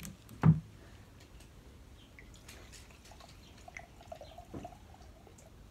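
One sharp knock about half a second in, then a quiet room with a few faint small clicks.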